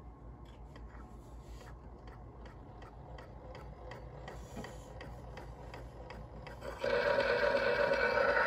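Edison Amberola cylinder phonograph running with a blue Amberol cylinder on the mandrel, giving a light, even ticking about three times a second. About seven seconds in, a much louder sound starts abruptly as the record begins playing through the horn.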